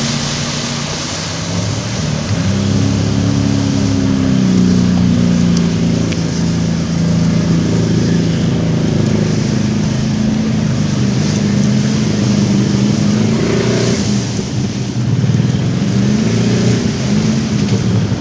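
Pickup truck engine revving hard as the truck churns through deep mud, its pitch climbing and dropping several times over a steady rush of noise.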